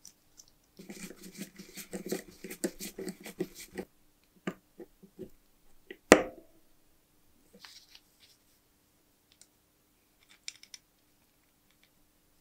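Small metal parts of a Carl Zeiss monocular being handled and worked with a screwdriver: a quick run of rapid clicks and scrapes for about three seconds, scattered clicks, then one sharp metal knock with a short ring about six seconds in.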